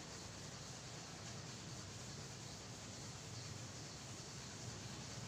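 A chalkboard duster rubbing faintly across a blackboard, wiping off chalk, over a steady hiss of room noise.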